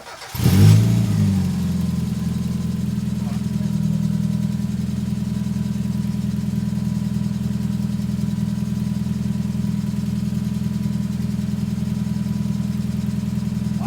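Mazda MX-5's four-cylinder engine starting and settling into a steady idle. It is running rough with a misfire that the owner puts down to the number-one fuel injector, which he couldn't hear clicking.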